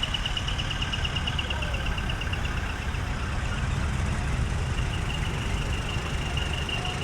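Large truck's diesel engine idling with a steady low rumble, and a thin high-pitched tone above it that wavers rapidly at first, then holds steady.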